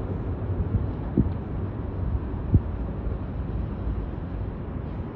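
Steady low rumble of wind buffeting the microphone out on open water, with two short thumps, about a second and two and a half seconds in.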